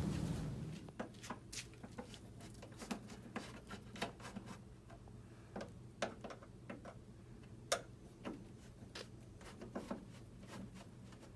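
Faint, irregular small clicks and taps of hands handling an LED light bar's wire and small parts, with the sharpest click about three quarters of the way through, over a steady low hum.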